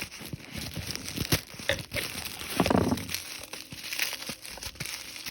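Packaging crinkling and rustling as it is handled and pulled off a Lego set, with a short vocal sound about halfway.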